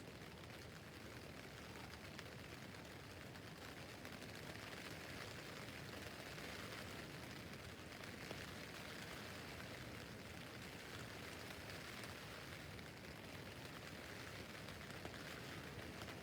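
Steady rain falling on a tent roof: a dense, even hiss of drops on the fabric, getting a little heavier about four seconds in.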